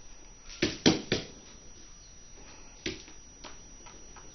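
A husky's paws knocking and thumping on the floor while it chases about: three quick knocks about a second in, another near three seconds, with lighter ticks between.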